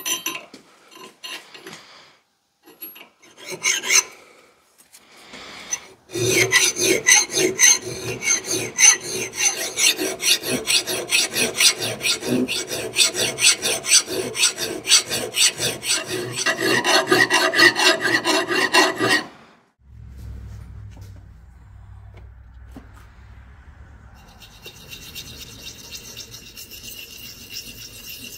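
Hand file drawn across the bevel of a steel axe head held in a vise, sharpening the edge: a few separate strokes, then a long run of quick, even rasping strokes that stops abruptly. After that comes a much quieter, softer rubbing of a diamond hone worked along the edge.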